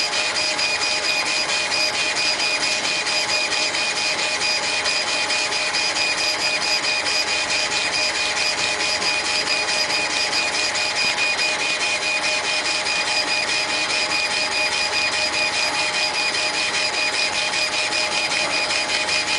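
An 80–100 W laser engraving machine with a rotary axis at work. Its motors give a steady whine of several high tones over a hiss, pulsing rapidly and evenly as the head travels back and forth.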